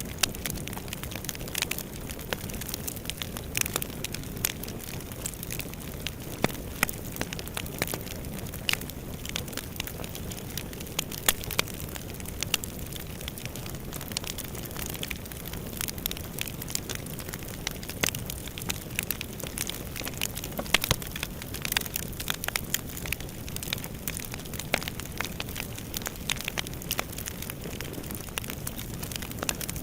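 Wood fire burning in a fireplace: a steady low rumble of flames with frequent, irregular crackles and pops, a few of them sharper and louder than the rest.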